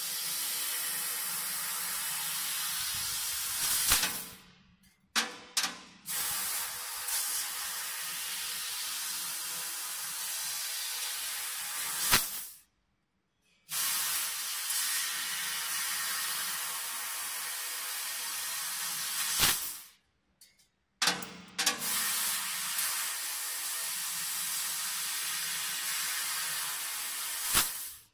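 A 1 kW fiber laser pipe cutter cutting 4 mm stainless steel pipe: a steady hiss of the cutting head's assist-gas jet and the spray of molten sparks. The hiss stops three times for about a second between cuts and again near the end, with a sharp pop each time the gas starts or stops.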